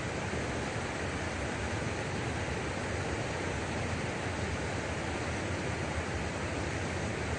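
Steady rush of water pouring over a small river weir, an even noise with no breaks.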